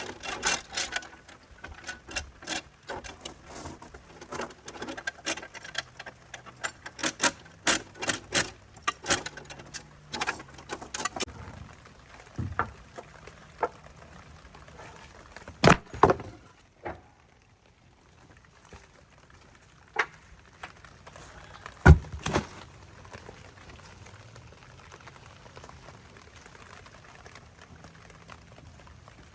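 Rapid clicking and knocking of hard objects for about eleven seconds, then a few separate, louder knocks.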